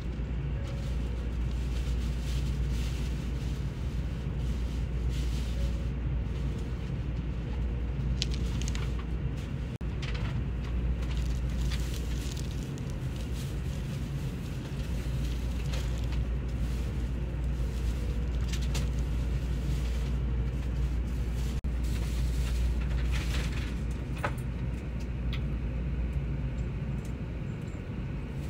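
Steady low rumble of a Shinkansen bullet train running at speed, heard inside the passenger car, with a few light clicks now and then.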